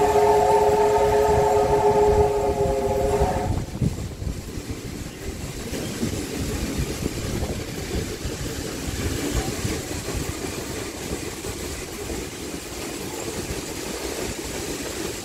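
Steam locomotive whistle blowing one long, steady chord of several tones, cutting off about three and a half seconds in. After that, the steady rumble of the steam train running.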